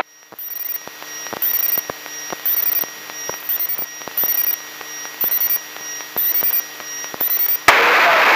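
Gyroplane intercom audio: a steady electrical hum with regular sharp clicks about twice a second and faint high chirps. Near the end, a loud steady hiss cuts in suddenly, like the radio squelch opening.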